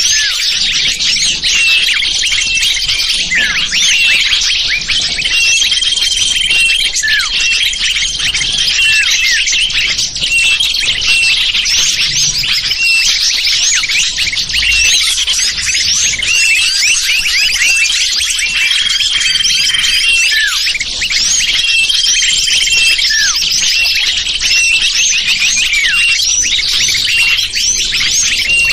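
Small-bird lure call: a dense, unbroken chorus of many high-pitched small-bird chirps and twitters overlapping, with short held whistled notes now and then.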